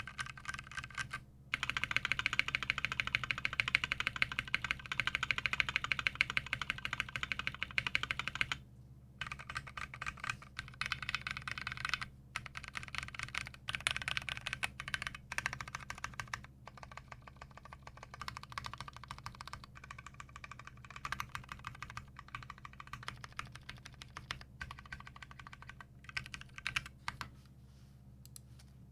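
Custom 60% mechanical keyboard being typed on: Durock Koala tactile switches on a brass plate with PBT keycaps, clacking in rapid continuous runs. The typing is densest and loudest for the first several seconds, stops briefly, then carries on in shorter bursts with small pauses.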